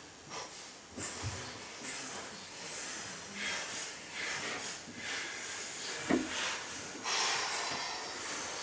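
A person's breathy hissing and puffing noises in short, irregular bursts.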